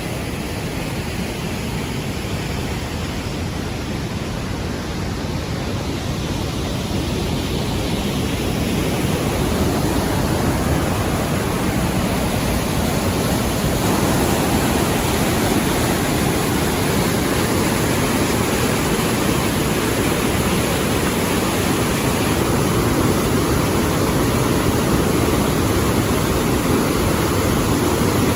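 Dawson Falls, a broad waterfall on the Murtle River, with water pouring over it in a steady, dense rush. It grows somewhat louder about eight seconds in.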